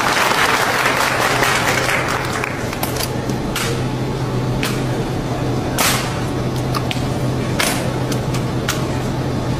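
Crowd cheering and applause dying away over the first two seconds, then a drill rifle being spun and caught: sharp slaps and clacks of hands on the rifle, about one every half second to second, over a steady low hum.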